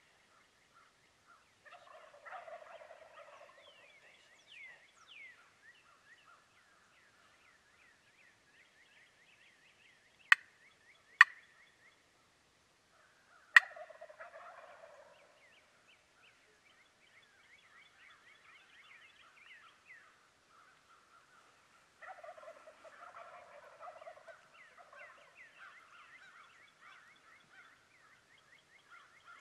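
Wild turkey gobbler gobbling three times, roughly ten seconds apart, over a constant chatter of short high chirps. Three loud sharp clicks come in the middle, the last one right as a gobble starts.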